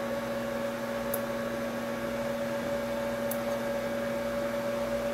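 Steady electrical hum with an even background hiss: room tone, with three faint, brief high ticks.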